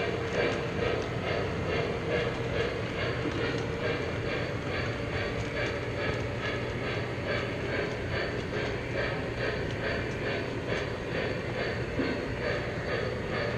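O-gauge model train rolling along three-rail track, its wheels running with a steady, even clicking over the rail joints over a continuous rumble and hum.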